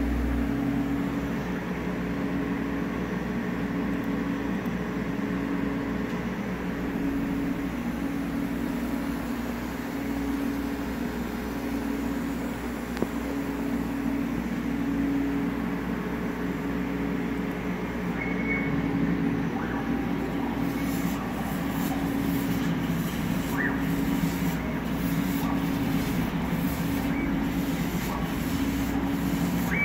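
Yueming CMA1309 CO2 laser cutter running: a steady machine hum with a low tone that pulses slowly. From about twenty seconds in, a series of short ticks joins it as the cutting head works across the material.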